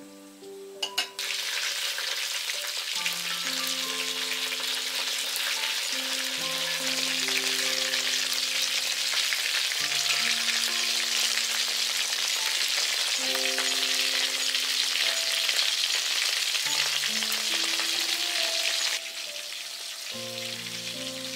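Battered shrimp-and-potato rolls deep-frying in a wok of hot oil: a loud, steady sizzle that starts suddenly about a second in and drops in level near the end.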